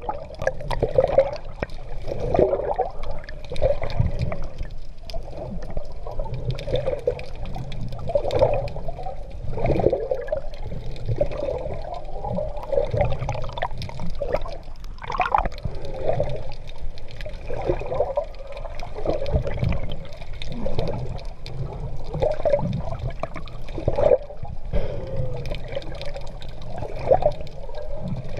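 Sea water splashing and gurgling around a swimmer in open water, muffled, swelling in surges every second or two with the strokes.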